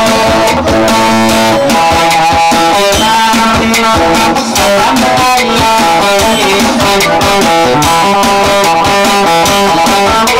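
Electric guitar playing a fast melody of short, quickly changing notes, Borana-style dance music, steady and loud throughout.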